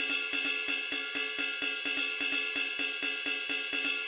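Background music with a steady hi-hat and cymbal beat, about four strokes a second, over held synth notes.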